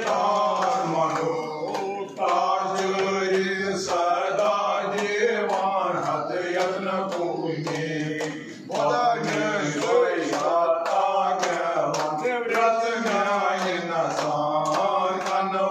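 Group of men chanting Hindu mantras together in a steady, sustained recitation.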